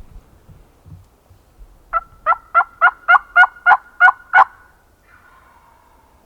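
Turkey yelping: a run of about nine sharp, evenly spaced yelps, about four a second, lasting about two and a half seconds.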